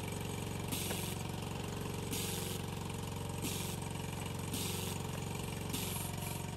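A small engine running steadily, with a hiss that comes back every second or two.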